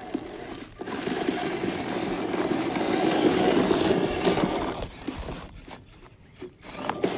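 1/16-scale WPL C-34 RC crawler's small electric motor and gearbox whirring as it drives over dirt, building from about a second in and easing off about five seconds in, with a short burst near the end.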